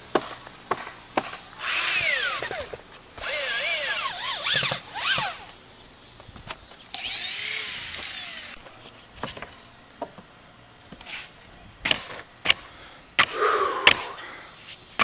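Power drill boring into OSB roof sheathing in three bursts, its motor whine rising and falling, the last burst winding down at the end. Sharp knocks on the roof deck come in between, loudest about twelve seconds in.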